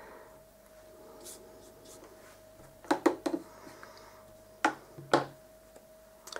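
Paintbrush scrubbing and swirling paint in the wells of a plastic watercolour palette, then a few sharp clicks and taps of the brush against the hard palette as it is knocked and laid down: a quick pair about three seconds in, two more about a second later, and one near the end. A faint steady hum lies underneath.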